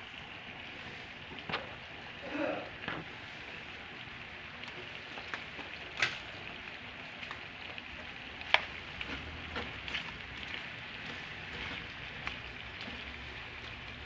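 Pork steak and sauce sizzling steadily in a hot frying pan as raw white onion rings are dropped in, with a few sharp clicks now and then.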